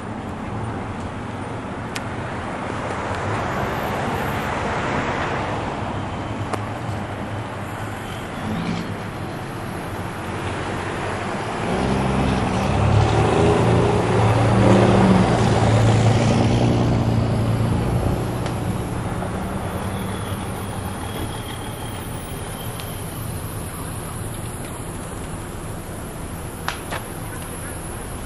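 Traffic noise with a heavy vehicle's engine swelling to its loudest about twelve to fifteen seconds in, then fading away.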